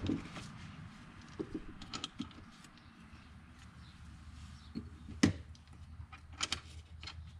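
Scattered light clinks and knocks of small metal transmission parts being handled on a workbench: a few soft ones early, one sharp click about five seconds in and a quick cluster of clicks just after.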